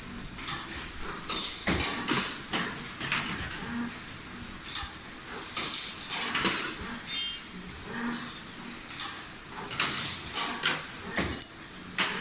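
CNC wire bending machine running: repeated sharp metallic clicks and knocks as it feeds and bends steel wire, with a short low motor hum coming back about every two seconds.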